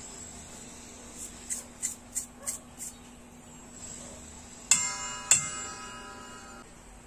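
Toothbrush scrubbing a metal part in a stainless steel bowl of cleaning liquid: a few short scrubbing strokes. Then the part knocks twice against the bowl, which rings like a bell for a second or so after each knock.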